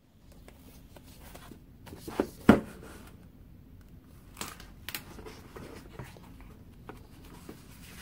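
Hands handling a Leuchtturm1917 hardcover notebook: the paper band slid off, the cover opened and the pages flipped, with paper rustling throughout. A sharp knock comes about two and a half seconds in, and two lighter taps come near the middle.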